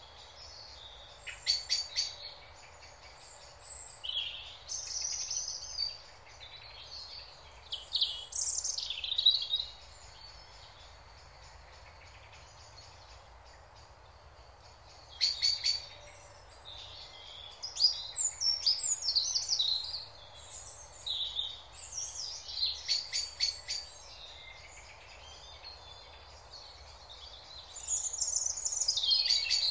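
Songbirds chirping and singing in short bursts, with a few rapid rattling trills; there is a lull in the middle and the singing is busiest near the end.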